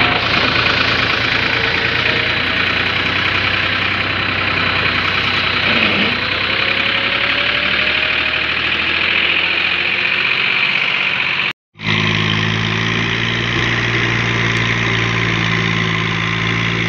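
Massey Ferguson 260 tractor's diesel engine running hard while the tractor rides on its rear wheels. About two-thirds through, the sound cuts out for a moment, and then a tractor engine runs on steadily with a lower, even drone.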